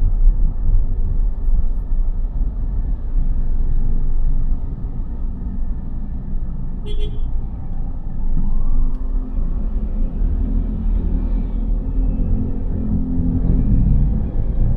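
City street traffic: cars passing with a steady low rumble, and a short high beep about halfway through.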